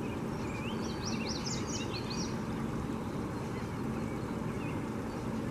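A small songbird sings a quick run of high chirps and short rising and falling notes in the first couple of seconds, over a steady rushing outdoor background noise.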